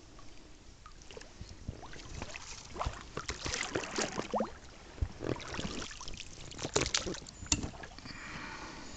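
Small wooden boat being handled on still water: irregular knocks and clicks with a few short creaks, busiest in the middle.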